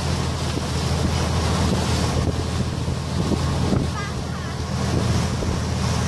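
Passenger ferry's engine running steadily with a low hum, under wind buffeting the microphone and the rush of the boat's wake.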